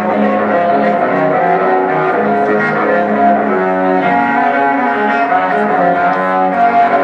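Live music: a cello bowed in sustained, overlapping notes that change pitch every second or so.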